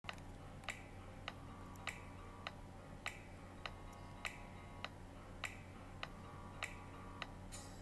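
Faint footsteps on a hard shop floor: evenly spaced clicks at a walking pace of about one every 0.6 s, over a low steady hum.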